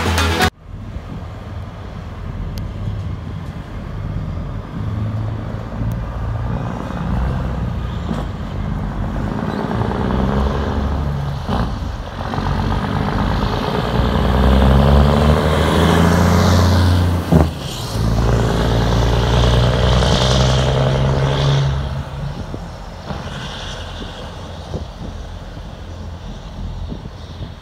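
Volvo FH truck with a loud open-pipe exhaust pulling away and driving past, the engine note climbing and dropping back several times, loudest about halfway through, then fading as it drives off. A sharp click sounds once near the loudest part.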